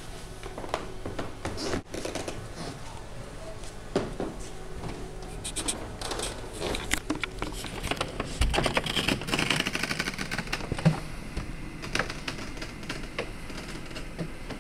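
Handling noise from a handheld camera carried through a cluttered room: scattered knocks, clicks and rustles over a low hum. The sound drops out briefly about two seconds in, and the clatter and rustling grow denser around the middle.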